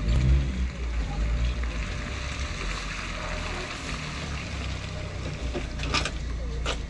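Wind buffeting the microphone as a steady low rumble over a noisy background hiss, with two short clicks near the end.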